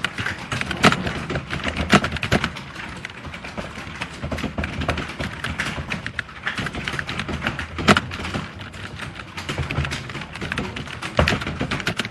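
Fast touch-typing on a computer keyboard: a rapid, irregular stream of key clicks, several a second, with a few louder keystrokes standing out.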